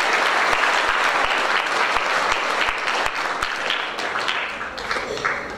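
Audience applauding a speaker's welcome to the stage, the clapping thinning out and fading near the end.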